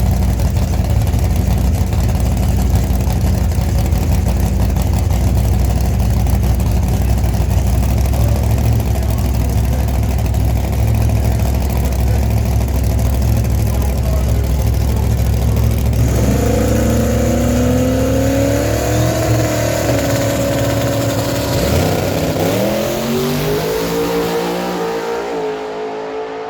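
Modified pickup truck engine running loudly with a deep, steady rumble; about two-thirds of the way through, its pitch rises as it revs, dips sharply and climbs again as with a gear change, then fades near the end.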